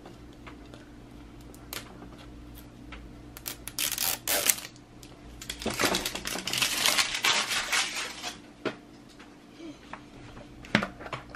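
A plastic toy capsule being handled and opened: crinkling and rustling of its wrapping in two stretches, with scattered clicks of plastic parts.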